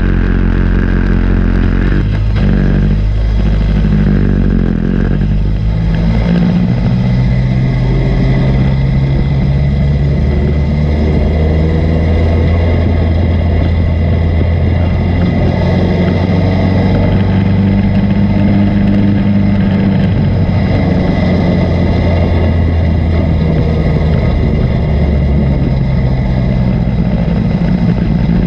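Dirt-track stock car's engine heard from inside the cockpit, running loud and steady, its pitch rising and falling as the throttle is worked.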